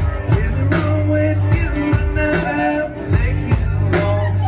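Live rock band playing: electric guitars, bass and drum kit with a steady beat, and a man singing into a microphone over them.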